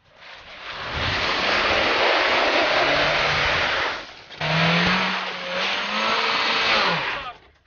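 Mitsubishi Pajero iO revving hard while its wheels spin in wet snow and mud, churning up slush. It comes in two long bursts with a short break around the middle, and the engine pitch climbs a little in each.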